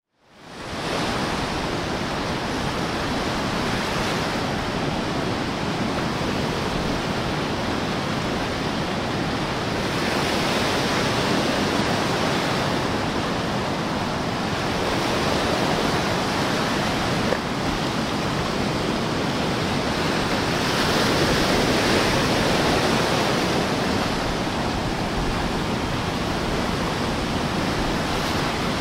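Small ocean waves washing in over rocks and sand at the water's edge, a steady rushing wash that swells louder every ten seconds or so as sets come in. It fades in over the first second.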